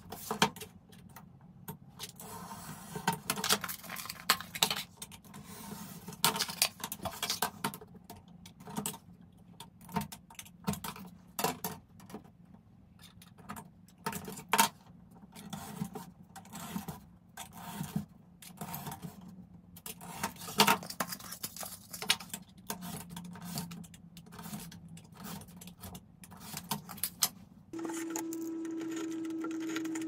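Knife blade drawn along a steel L-square, scraping through a thin black sheet on a cutting mat, with irregular clicks and clinks as the metal square and the cut pieces are set down and moved. Near the end the scraping gives way to a steady low hum.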